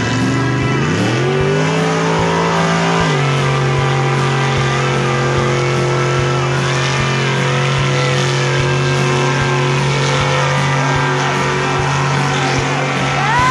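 Pickup truck engine revving up under hard throttle, the revs climbing over the first second or two, dipping slightly about three seconds in, then held high and steady as the truck runs down the dirt track.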